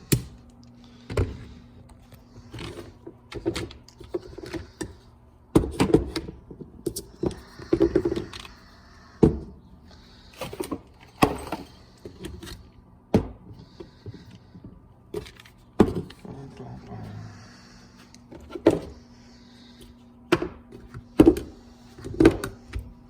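Irregular clunks and clicks of Snap-on 14.4-volt cordless tools and battery packs being handled and set down on a hard surface, a dozen or so knocks spread through, over a faint steady hum.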